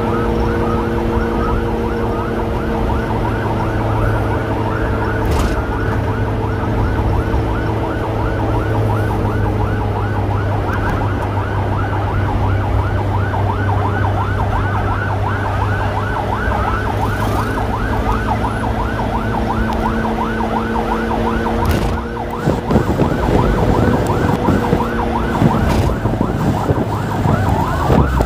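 Emergency vehicle sirens on a fast, rapidly repeating yelp, over a steady low engine drone. Near the end a slower wail sweeping up and down sets in.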